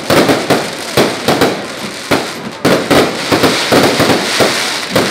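Aerial fireworks bursting in quick succession: a dense string of loud bangs and crackles, several a second.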